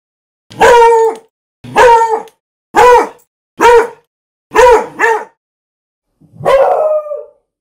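A beagle barking: seven loud, pitched barks at about one a second, the last one longer and rougher.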